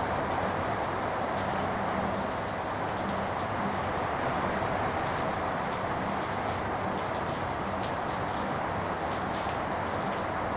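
Heavy rain falling steadily in a thunderstorm, an even rushing downpour with faint individual drop hits through it.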